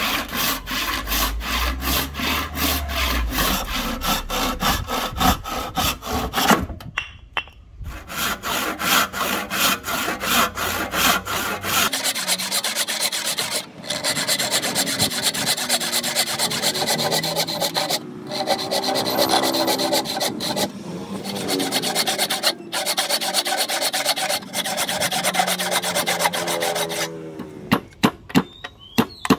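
Hand tool working padauk wood in quick back-and-forth strokes, about four or five a second, breaking off briefly about seven seconds in. From about twelve seconds on the strokes run denser and more continuous, with some squeaks.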